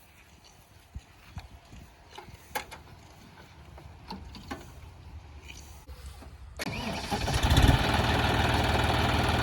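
A few faint clicks and knocks, then about two-thirds of the way through a tractor's three-cylinder diesel engine starts abruptly. It revs up briefly and settles into a steady run.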